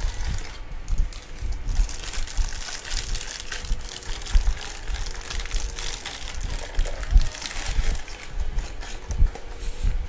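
Plastic packaging crinkling and rustling as it is handled, with irregular small knocks from the desk.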